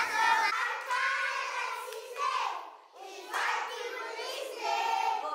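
Several children's high voices together, dropping away briefly about three seconds in.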